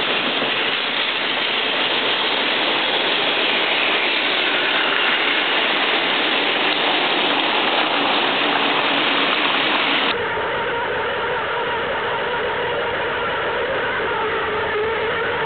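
Plarail battery-powered toy trains running on plastic track: a steady, dense whirr and clatter of the small motor, gears and wheels. About ten seconds in the sound changes abruptly to a slightly quieter run with a steady hum.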